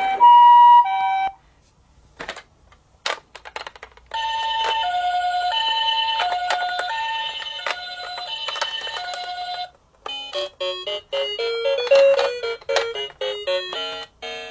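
Toy ambulance's electronic hi-lo siren, two alternating tones, stopping about a second in, with a few clicks after it. The same two-note siren then plays steadily for about five seconds, followed by a short electronic beeping tune.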